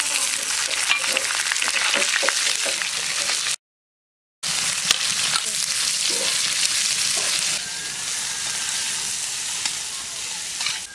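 Spices sizzling in hot oil in a large metal wok: green chillies, dried red chillies, bay leaves and panch phoron, then sliced onions, with a flat metal spatula scraping and stirring. The sizzle cuts out for under a second near the middle and is a little quieter toward the end.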